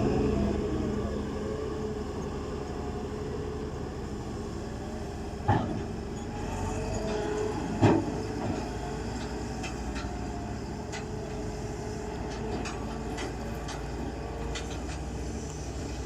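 A machine or engine running steadily, with two sharp knocks about five and a half and eight seconds in and light clicks later on.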